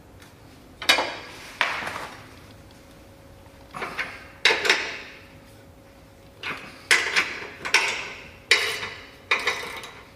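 Sharp metallic clanks and clinks of a hand wrench working against steel strut channel and its bracket as a bolt at its base is tightened. There are about a dozen, irregularly spaced and some in quick pairs, each ringing briefly.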